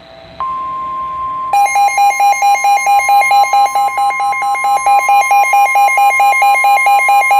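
NOAA Weather Radio alert: the steady 1050 Hz warning alarm tone comes on about half a second in. A second later the receiver's own loud, pulsing alarm beep joins it, about three to four beeps a second. Together they signal that a severe thunderstorm warning is about to be broadcast.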